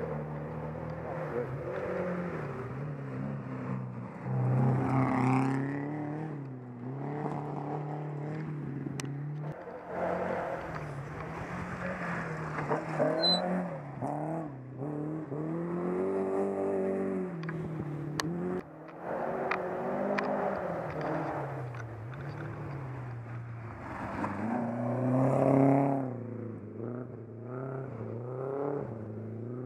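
Rally car engines on a gravel special stage, revving hard and dropping back between gear changes as the cars go by. The sound swells and fades several times, with a few short sharp clicks.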